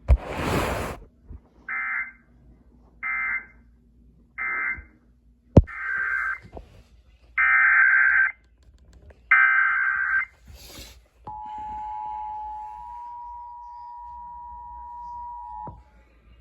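A short burst of static, then Emergency Alert System SAME data bursts: three short bursts of warbling digital tones, the end-of-message code, then three longer ones, the header of the next alert. Then the steady two-tone EAS attention signal sounds for about four seconds, marking the start of a new broadcast weather warning.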